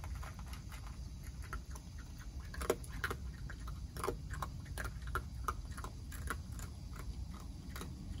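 Virginia opossum chewing dry cat-food kibble: irregular crisp crunching clicks, several a second, loudest about three seconds in, stopping near the end. A steady low hum lies beneath.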